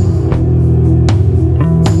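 Background music led by guitar over a bass line, with sharp hits roughly every half second.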